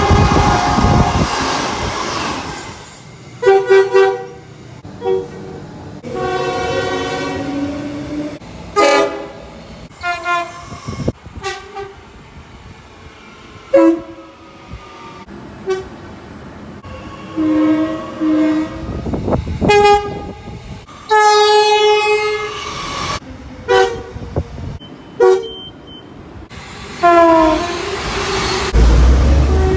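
Train horns sounding in a quick run of short blasts, each a chord of several tones, changing abruptly from one horn to the next. Rail noise of a moving train is under the first couple of seconds, and near the end one horn bends down in pitch.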